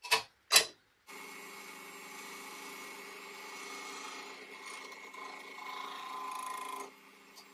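Two sharp knocks, then a Parkside benchtop wood lathe running with a steady motor hum while a hand-held turning chisel cuts the spinning wooden spindle, the cutting noise rising and falling and easing off about a second before the end.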